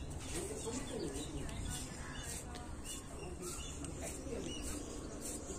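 Birds chirping and calling, many short repeated chirps over a low steady rumble.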